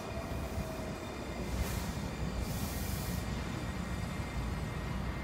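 Washington Metro train rolling in along the platform: a steady rumble of wheels on rail with faint squeal tones, and two short hisses about two and three seconds in.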